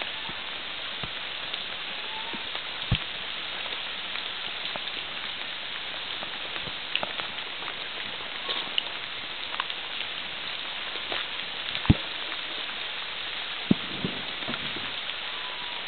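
Steady hiss of water, with scattered sharp drip-like taps; the strongest tap comes about twelve seconds in.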